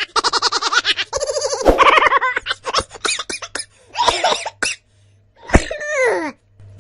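Laughter sound effect: a burst of fast, repeated laughing that breaks into shorter bursts, with a sharp click and a falling vocal glide near the end.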